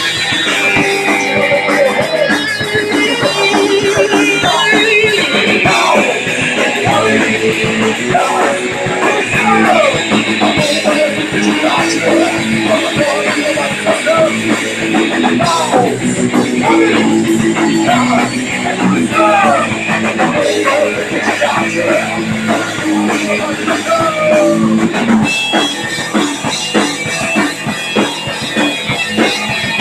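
Live punk rock band playing loud, with electric guitars, bass guitar and a drum kit.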